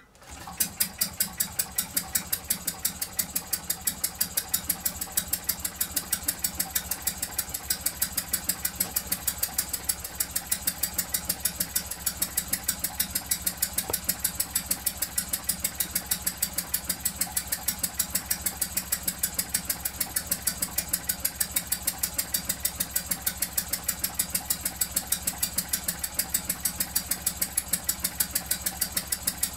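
Model twin-cylinder hot-bulb (semi-diesel) engine running on kerosene catches within the first second after the flywheel is swung. It then runs steadily with an even, rapid beat.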